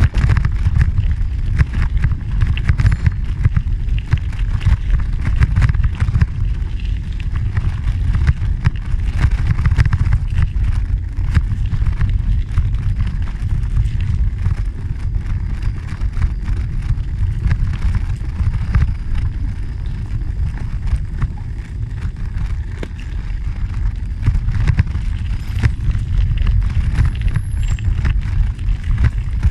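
Riding a bicycle along a gravel trail: a steady low rumble of wind on the microphone, with an irregular crackle of tyres over loose gravel.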